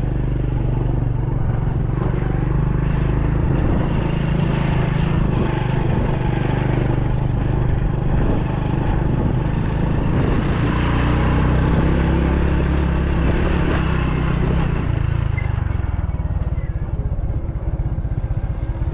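A motor vehicle's engine running steadily on the move, with road noise. The engine note changes about fifteen seconds in.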